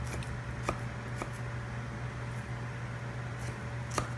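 Kitchen knife slicing pickled bamboo shoots on a wooden cutting board: a few sharp taps of the blade meeting the board, three in the first second and a half and another near the end, over a steady low hum.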